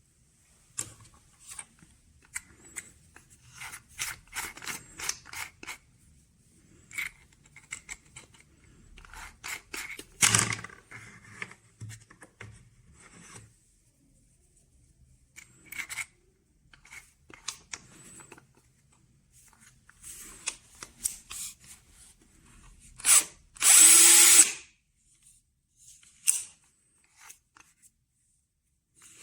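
Bosch EasyImpact 18V-38 cordless impact drill being handled, with a series of clicks and rattles. It runs once, briefly, about two-thirds of the way through, and this is the loudest sound.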